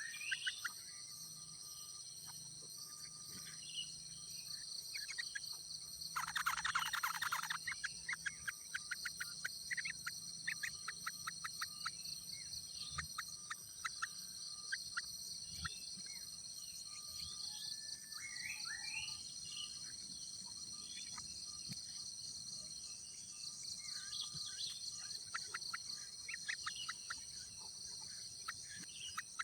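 Steady high insect drone, like crickets, with scattered short bird chirps over it and a loud burst of rapid chirping about six seconds in that lasts a second or so.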